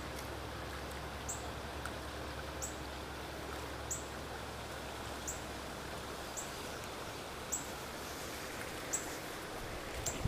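Steady outdoor creek ambience, an even hiss, with a short high chirp repeating about every second and a half.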